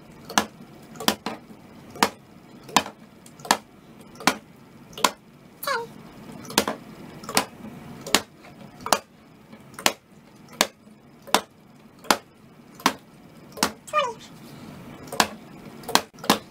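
Plastic water bottle flipped and landing upright on a wooden dresser top over and over: a sharp thud about every three-quarters of a second, each one a landed flip in a run of consecutive bottle flips.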